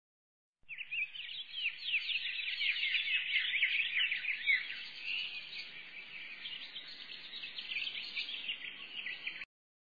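Dense twittering of many small birds, countless quick high chirps overlapping; it starts abruptly about half a second in and cuts off abruptly near the end.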